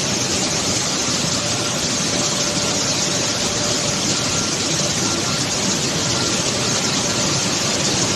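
Wheat flour milling machinery running: a loud, steady, dense machine noise with faint steady whines in it.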